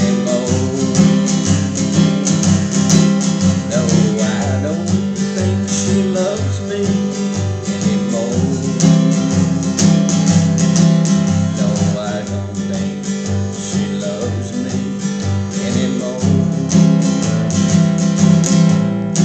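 Acoustic guitar played as an instrumental passage: a steady rhythm of low bass notes on the beat with chords strummed between them.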